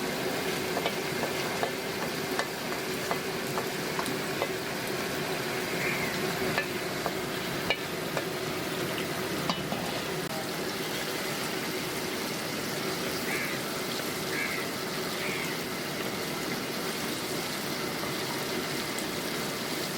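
Spiced sauce sizzling as it fries in a pan, a steady crackling hiss, with a few light clicks of a utensil now and then in the first half.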